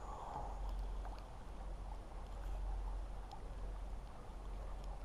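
Wind rumbling on the microphone over the wash of a river, with a few faint clicks from a spinning reel being handled.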